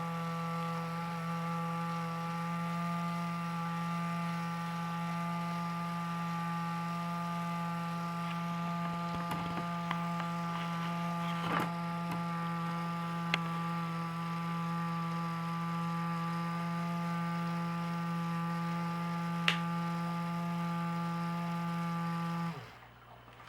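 Small electric motor driving a 1/24 scale model garage door, running on a 2-cell battery pack in a test run: a steady whine with a few light clicks, cutting off suddenly near the end.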